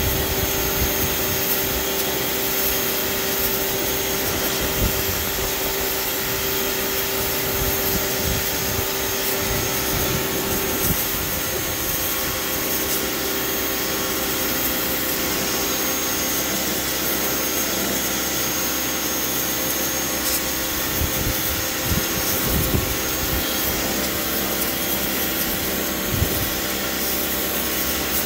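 Pressure washer running steadily, its water jet spraying across wooden deck boards in a constant hiss with a steady hum underneath.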